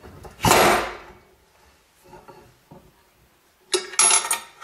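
The spring-loaded ram of a Potter USA bench stamping tool comes down in one hard whack on a steel letter stamp set on a copper blank, a single loud strike with a brief ring and no double tap. Near the end, a quick run of metal clicks and clinks as the spring clamp holding the stamp is released.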